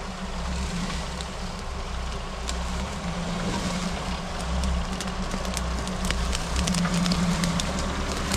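Off-road 4x4 engine running at low revs as the vehicle crawls over rough ground, with scattered crackles and clicks that come more often near the end as the engine gets a little louder.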